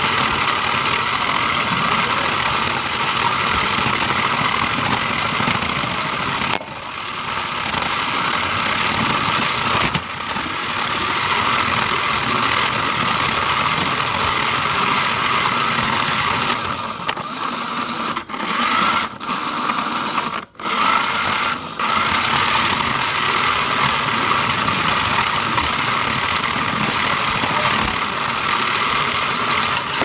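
Toy remote-control car's small electric motor and gears whining steadily as it drives, cutting out briefly a few times, with several short stops in the second half as the throttle is let off.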